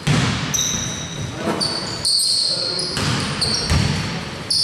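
Basketball bouncing on a hardwood court during play: about five sharp thumps at uneven intervals.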